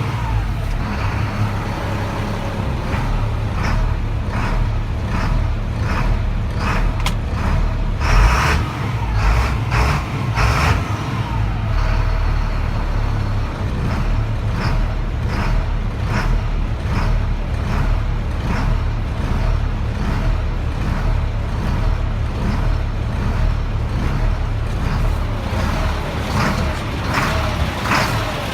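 Diesel engine of a 1999 Freightliner truck running steadily, with irregular sharp ticks through the rumble and a louder burst about 8 seconds in. The truck has a failing fuel pressure sensor, which the owner gives as the cause of its hard starting and surging.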